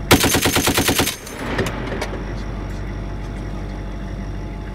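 M2 Browning .50 caliber heavy machine gun firing one short burst of about nine or ten rounds lasting about a second, then a steady low rumble of the vehicle under the turret.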